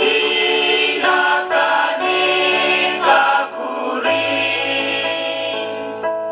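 Choir singing, with held notes that move to new chords about once a second and a low bass part coming in about four seconds in.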